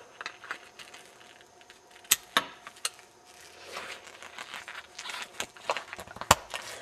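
Small metal clicks and scrapes of a screwdriver working the inner parts of a cut-open Master padlock: a handful of sharp clicks, the loudest about two seconds in and again about six seconds in, with light scraping and rustling between.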